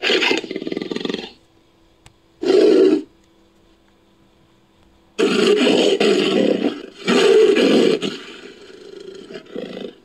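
Made-up cheetah sound effect built from cheetah and leopard recordings: a series of harsh big-cat roars. There is a roughly one-second roar at the start and a short one about two and a half seconds in. Two longer ones come in quick succession from about five seconds, trailing off into weaker calls near the end.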